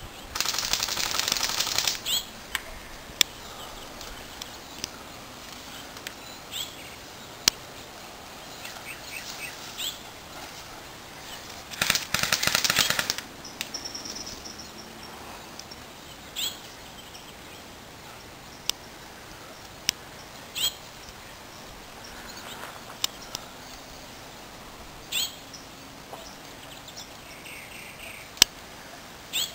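Airsoft guns firing: two bursts of rapid full-auto fire, one about two seconds long at the start and a shorter one about twelve seconds in, with single sharp shots here and there.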